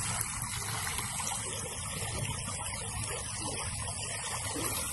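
Water rushing steadily along a farm irrigation channel, a continuous even flow noise.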